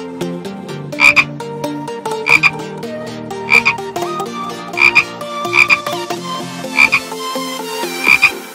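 Frog croaks, a quick double croak repeated about every second and a quarter, seven times, over light background music.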